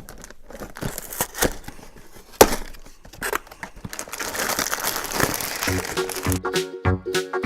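Lego packaging and plastic pieces being handled: rustling, crinkling and small clicks, with one sharp knock about two and a half seconds in. Background music with a steady beat starts near the end.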